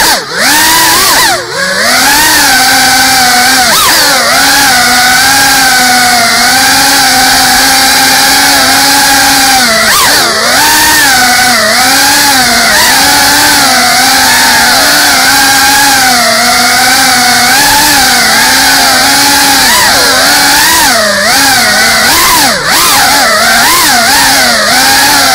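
Small FPV quadcopter's brushless motors and propellers whining close to the onboard camera's microphone, the pitch rising and falling with each throttle change. The whine dips briefly near the start and again about ten seconds in, then climbs back up.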